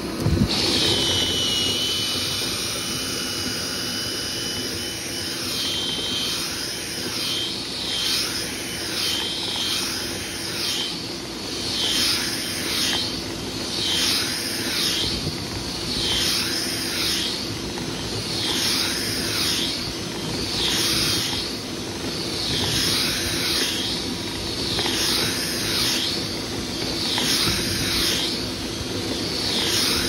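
Dryer vent cleaning equipment running: a steady motor hum with a rhythmic swishing that repeats roughly three times every four seconds, as the duct is worked through. A click comes just after the start.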